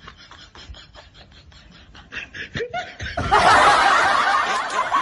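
Laughter: quiet, rapid snickering that breaks into loud laughing about three seconds in.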